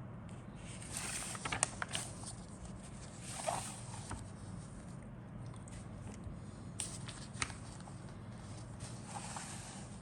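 Plastic kit parts and packaging being handled: intermittent rustling and scraping with a few sharp clicks, over a low steady hum.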